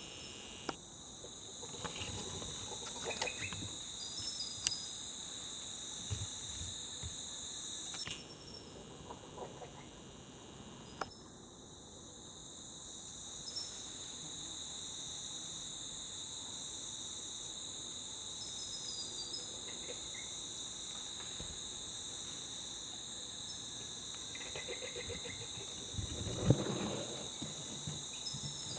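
Steady rainforest insect chorus: two continuous high shrill tones, with scattered short high chirps and a few sharp clicks. Near the end comes a brief rustling with one sharp knock.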